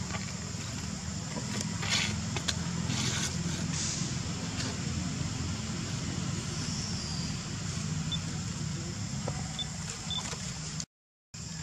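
Steady outdoor background of low rumble and high hiss, with a few short rustles or clicks a couple of seconds in; the sound drops out briefly near the end.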